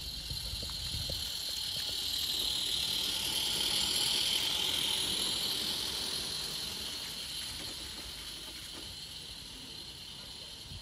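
Small live-steam model locomotive hauling a goods train past, its steam hiss growing louder as it approaches, loudest about four seconds in, then fading as it runs away.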